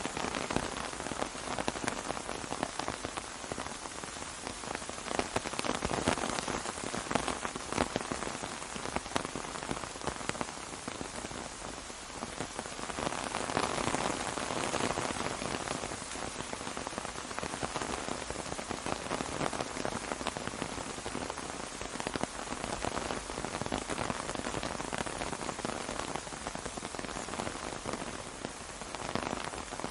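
Steady rain falling on an umbrella: a dense hiss of many small drop impacts, swelling slightly a couple of times.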